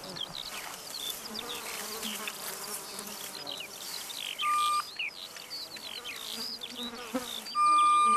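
Hand-held mine detector giving two steady electronic beeps, a short one about four and a half seconds in and a longer one near the end, signalling metal in the ground under its search head. Insects and birds chirp throughout.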